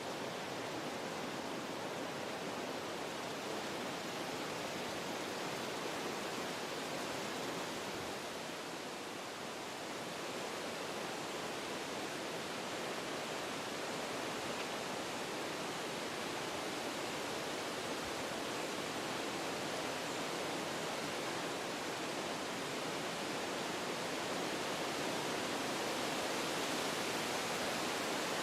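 Wind rushing through forest trees: a steady hiss that eases briefly about a third of the way in and builds a little near the end.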